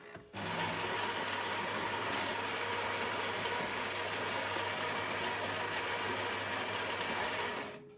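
Philips 3200 series LatteGo automatic espresso machine running on a latte macchiato cycle: a loud, steady mechanical whir over a low hum, starting just after the start and stopping abruptly near the end.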